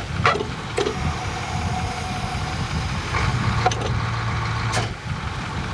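Utility bucket truck's engine running steadily to drive the boom hydraulics as the jib is moved, with a few sharp metal knocks and a faint steady whine for a couple of seconds.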